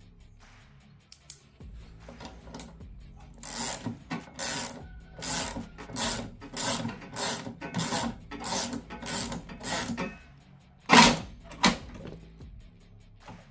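Socket ratchet worked back and forth in about a dozen even, rasping strokes, tightening the bolt that holds the mower deck's belt idler arm, ending with two louder strokes.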